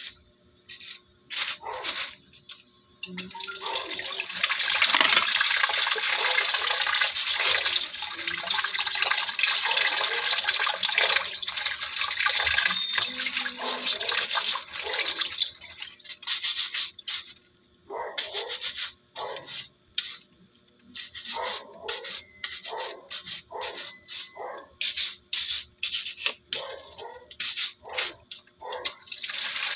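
Stiff plastic scrub brush scrubbing a crab's shell at a sink. Tap water runs steadily through the middle, with brushing under it. Near the end come short scrubbing strokes, about two a second.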